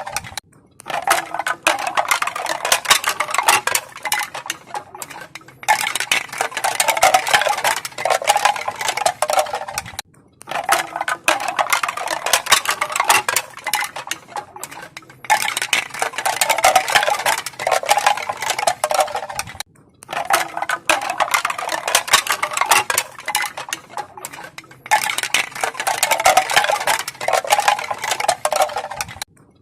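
Pieces of bamboo clacking together in rapid, crisp clicks, in runs of about five seconds with a short break between each.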